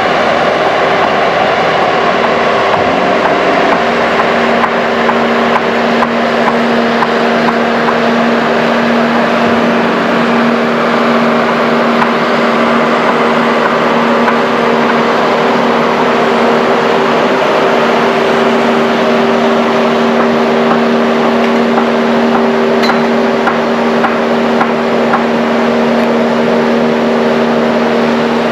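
Diesel engine running steadily at idle, a constant mechanical drone with a steady low hum.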